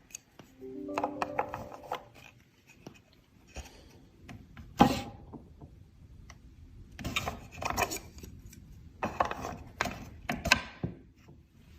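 Hand tool scraping or rasping on wood in separate bursts of strokes with pauses between, after a brief ringing knock about a second in.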